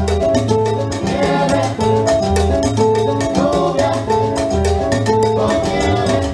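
Live salsa band playing at full volume: a steady percussion beat with congas, over bass and keyboard lines.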